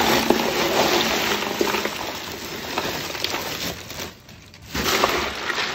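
Bagged ice cubes poured from a plastic bag into a cooler of liquid, rattling and splashing, with a brief lull about four seconds in before more ice tumbles in.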